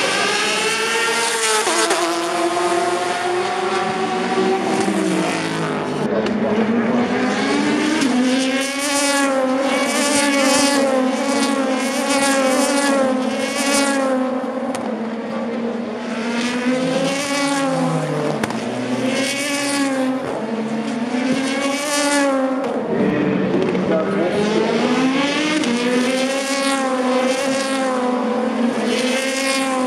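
Endurance race cars braking into a chicane and accelerating out of it. The engine note falls as the cars slow, then climbs in repeated rising sweeps broken by quick gear changes, one car after another.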